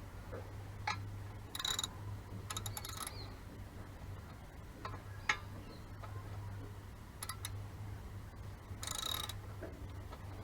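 Scattered clicks and a few short metallic clinks of tools and parts being handled during brake work, over a steady low hum.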